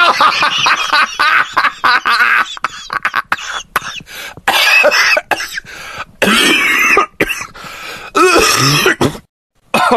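A person coughing and clearing their throat in a run of bursts, with voice-like sounds in between. The sound stops just before the end.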